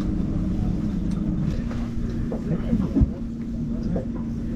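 Boat's outboard motor idling steadily, a low hum with a few steady tones, and a single knock about three seconds in.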